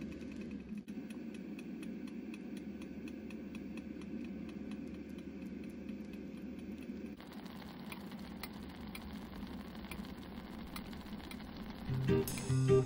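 Takoyaki batter sizzling and bubbling on a hot takoyaki plate: a steady low sizzle flecked with faint crackles. Guitar music comes in near the end.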